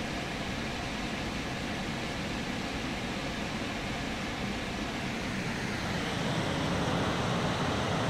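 Steady rushing noise in a car's cabin, growing a little louder about six seconds in as the roar of the Låtefoss twin waterfall takes over.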